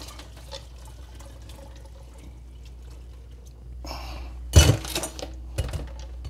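Dashi broth poured from a ceramic bowl through a funnel into a glass jar, a faint steady stream of liquid. About four and a half seconds in comes a loud clunk, followed by a few smaller knocks.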